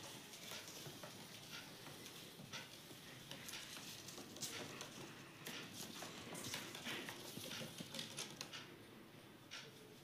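Indian ringneck parrot's feet tapping and scratching on wooden floorboards as it hops and dances about: a scatter of irregular light clicks and scrapes.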